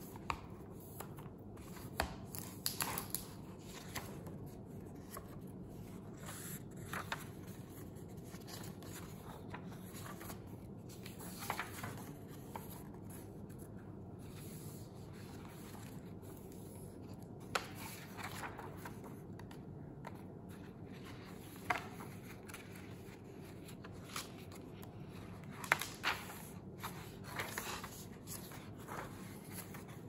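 Paper pages of a hardcover school diary turned and flipped by hand: short, scattered rustles and soft slaps of pages, over a steady low room hum.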